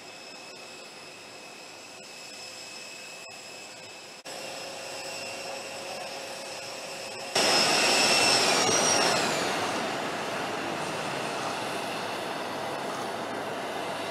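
Jet aircraft turbine whine with a steady rush. The sound of Air Force One, a Boeing VC-25A, as it stands on the tarmac. It jumps louder about seven seconds in, where the high whine falls in pitch and a steady rushing noise carries on.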